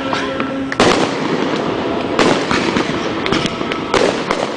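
Fireworks going off in quick succession: a steady crackle with sharp bangs on top, the loudest about a second in and more around two, three and four seconds in.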